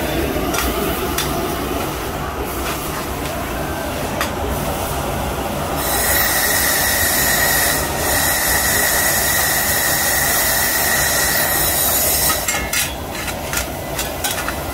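Lightweld handheld laser welder fusion-welding 6000-series aluminum plate without filler wire. Short sharp snaps of individual tack welds come at the start and again near the end, and a loud steady hiss with a high whistle runs for about six seconds in the middle. A steady low hum sits underneath.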